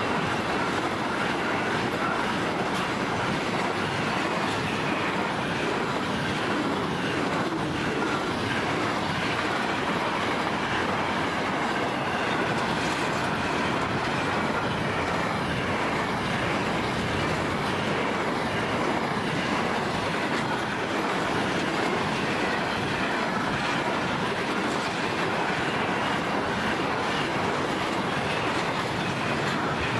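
Container wagons of a long freight train rolling past at speed: a steady noise of steel wheels on rail with a repeated clatter of wheels over the track.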